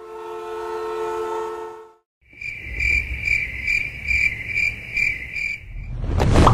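A held, steady chord of several tones for about two seconds, which cuts off. After a short gap, a cricket chirps in even pulses, about three a second, over a low rumble.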